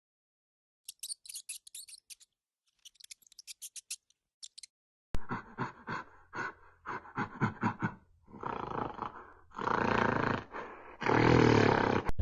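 An animal calling: a quick run of short grunting calls starts abruptly, followed by two longer drawn-out calls near the end, after a few seconds of faint high clicking.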